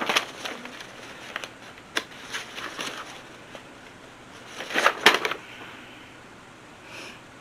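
Paper invoice sheets being handled and leafed through: a run of rustles and light clicks in short bursts, the loudest about five seconds in.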